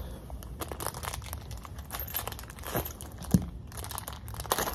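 Small clear plastic parts bag crinkling and crackling as it is handled and opened to get a screw out, with one sharp click a little past three seconds in.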